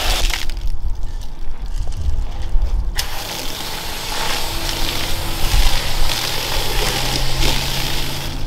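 Garden-hose foam gun spraying soapy foam onto a car: a steady hiss that starts sharply about three seconds in and keeps going, with a low rumble underneath throughout.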